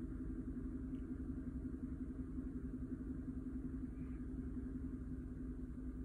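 A GMC Sierra's 5.3-litre V8 (LC9) idling steadily while still very cold, a low, even rumble.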